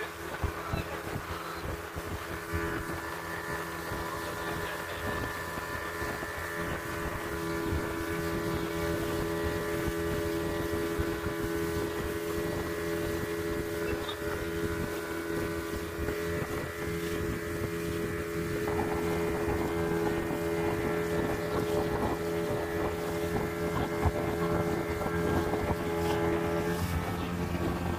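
A 40-horsepower outboard motor pushing a small boat along at speed, its engine note steady, with wind buffeting the microphone. Near the end the engine's pitch drops as it slows.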